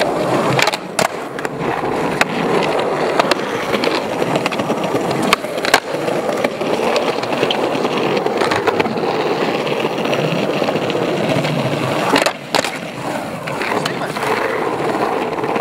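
Skateboard wheels rolling steadily over smooth stone paving, broken by several sharp clacks of the board striking the ground.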